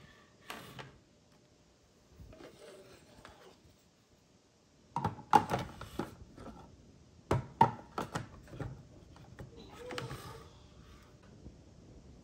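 Plastic parts of a Ninja food-processor bowl being handled and fitted together: clicks and knocks as the lid and the feed-chute pusher are set in place. The knocks are loudest in two clusters, about five and seven seconds in.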